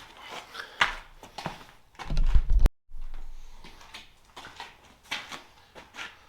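Scattered clicks and knocks of hands and tools at work. About two seconds in, a short loud low rumble cuts off abruptly into a moment of dead silence at an edit.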